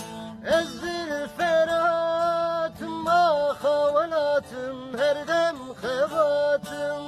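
A voice singing a slow, ornamented melody with slides and bends between held notes, over a steady low instrumental drone, in a Kurdish folk song.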